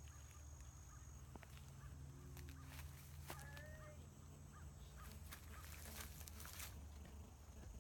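Quiet outdoor ambience: a steady low hum with a few faint, short bird calls a couple of seconds in, scattered light clicks, and a brief soft hiss near the end.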